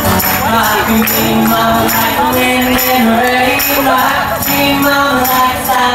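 Singers and an audience singing along to a folk-country song, with a hand tambourine jingling on the beat about twice a second and sustained sung notes over it.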